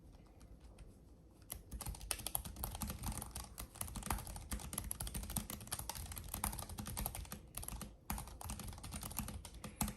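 Rapid typing on a Keychron K7 low-profile mechanical keyboard fitted with banana switches, a tactile switch. Quick key clicks start about a second and a half in and run on with two short breaks near the end.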